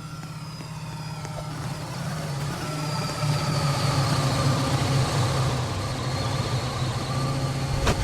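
Runaway freight train rolling in: a low rumble that grows steadily louder, with faint steady high squealing tones over it. A burst of crashing noise breaks in right at the end.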